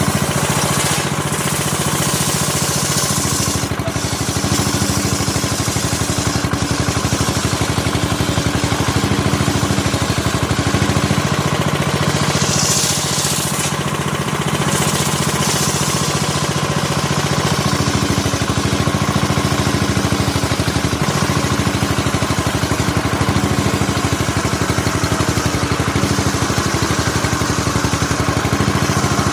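Stihl two-stroke chainsaw running and cutting teak, the engine pitch rising and dropping as the load on the chain changes.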